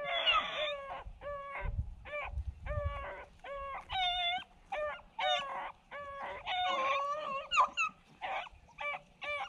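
Beagle hounds baying as they run a rabbit, short pitched bays coming about two a second.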